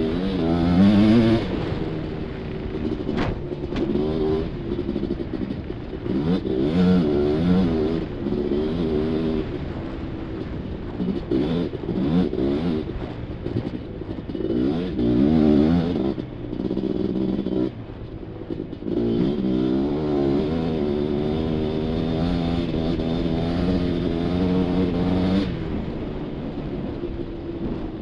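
Suzuki LT500R Quadzilla's two-stroke single-cylinder engine revving up and down again and again under throttle while the quad is ridden. There are a couple of brief lifts off the throttle a little past halfway.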